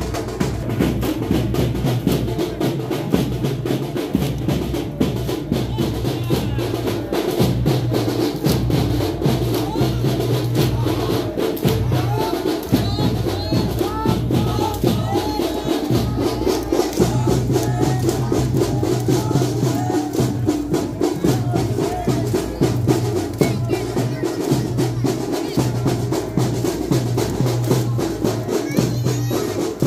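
Fast, dense drumming for a Muharram chokara dance, with a crowd of men's voices shouting over it.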